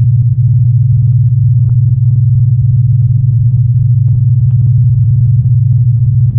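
Creepy monster sound effect: a loud, steady low rumbling drone with a fast flutter in it, with faint crackles scattered over the top.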